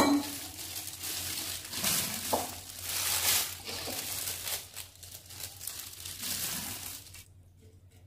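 Irregular rustling and crinkling as chili-garlic bamboo shoots are handled and packed into a jar, stopping about seven seconds in.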